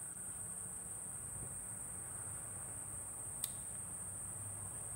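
Quiet background: a steady high-pitched whine with a faint low hum, and a single brief click about three and a half seconds in.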